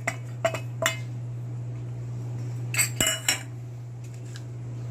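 Kitchen utensils clinking and knocking against dishes: a few light clicks in the first second, then a louder cluster of ringing clinks about three seconds in.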